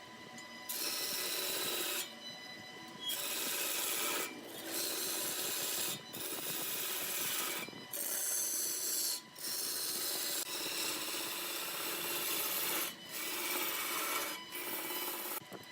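Hollowing tool cutting into wood spinning on a large wood lathe: a rasping scrape in repeated passes of a second or two, with short breaks between them, over a faint steady whine.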